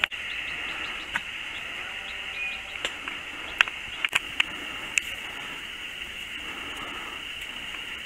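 Insects chirring outdoors: a steady, high-pitched drone, with a few sharp clicks scattered through it.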